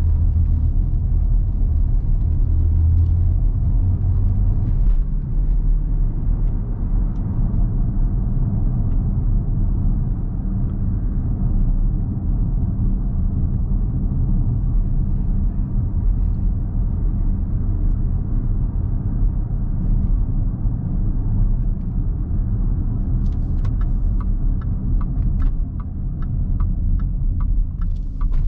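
Range Rover L322's 5.0-litre supercharged V8 heard from inside the cabin while driving: a steady low rumble under road noise, heavier for the first few seconds. A run of light clicks near the end.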